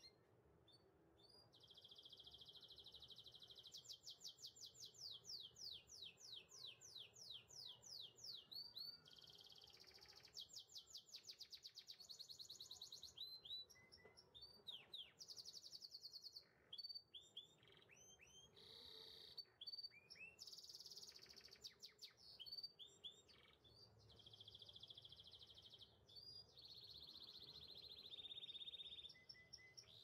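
Belgian canary singing: long phrases of fast, high trills and rolled repeated notes, broken by short pauses.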